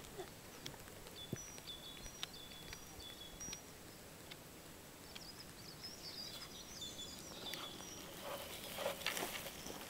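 Cat chewing a field mouse, with scattered sharp crunching clicks that come thickest and loudest about nine seconds in. Small birds chirp with short high notes in the background.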